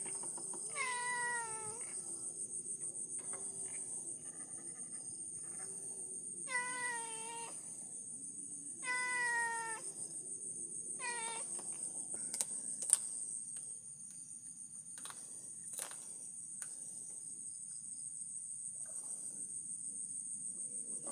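Night insects keep up a steady high-pitched trill, and an animal gives four falling cries, each about a second long, in the first half. A few sharp clicks come in the second half.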